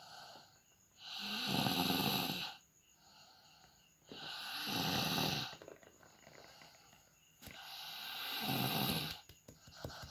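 A person snoring loudly in deep sleep: three loud snores about three seconds apart, with quieter breaths between them.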